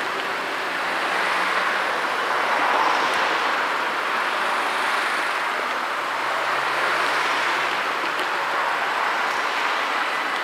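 Road traffic: cars driving past one after another, their tyre and engine noise swelling twice and easing off between.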